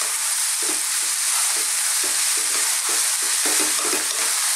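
Rice and diced courgette sizzling as they fry in an oiled pan, with a wooden spoon stirring and scraping through them in quick repeated strokes.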